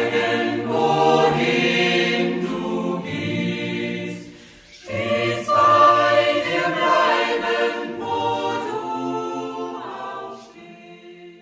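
A choir singing a slow hymn, with a brief breath between phrases about halfway through and the singing fading out near the end.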